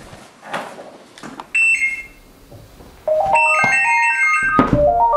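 Mobile phone ringtone playing a quick electronic melody of stepped notes, rising and falling, starting about three seconds in after a short beep.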